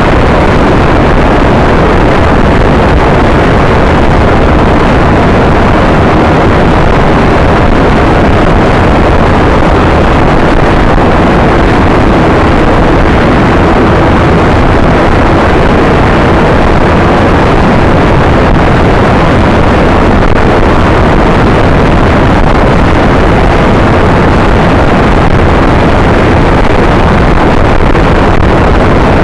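Scooter riding along a road: a loud, steady rush of wind and road noise over the mounted camera's microphone, with the scooter's engine running underneath.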